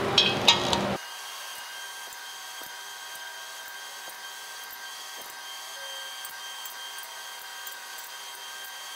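Digital torque wrench being pulled in angle-torque mode on LS3 main cap bolts: two sharp clicks with short beeps in the first second, then a faint steady high hum with a few soft ratchet ticks.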